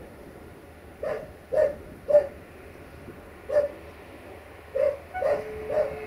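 A dog barks repeatedly, about seven short barks spaced irregularly. Just after five seconds in, a steady single-pitched train horn tone starts and holds.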